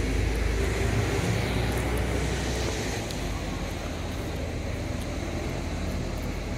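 City street ambience: a low vehicle rumble, strongest for the first three seconds and then easing off, over a steady traffic hum.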